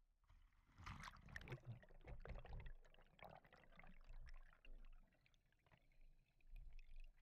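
Faint splashing and bubbling as a camera in its waterproof housing goes under the sea surface, dense crackle for about two seconds, then muffled underwater quiet with scattered faint clicks and low rumbles.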